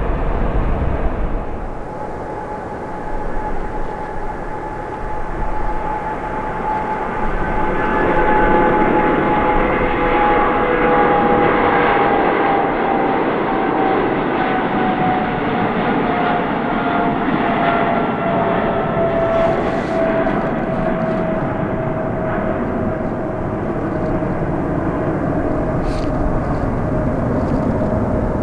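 Jet airliner's engines passing, a loud steady rush with an engine whine that slowly falls in pitch.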